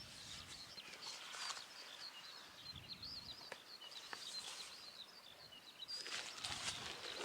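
Faint songbirds twittering continuously in a rural outdoor setting, with a couple of short bursts of rustling about a second in and again near the end.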